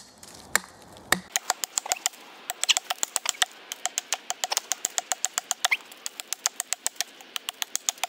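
Small Gränsfors hatchet chopping down a beech stick held upright on a stump, slimming it into a wooden mallet. It makes a quick run of light, sharp wood-on-steel strikes, several a second.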